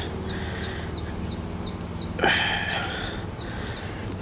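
High, thin chirps repeating evenly about three times a second, with a short scrape about two seconds in.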